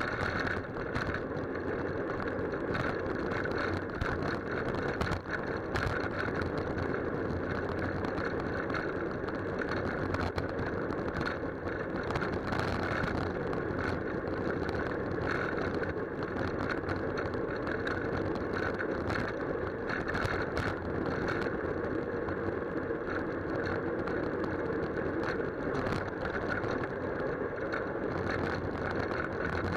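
Steady rumble of wind and road vibration picked up by a camera mounted on a moving bicycle's handlebars, with frequent small knocks and rattles from bumps in the road surface.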